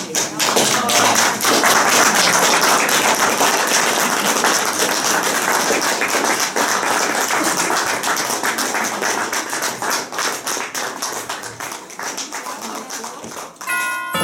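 Audience applauding: a dense run of hand claps that thins out near the end.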